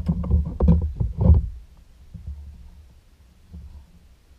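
Knife chopping raw lobster tail and snapper fillet on a plastic cutting board: a quick run of dull thuds in the first second and a half, then a few fainter, sparser knocks.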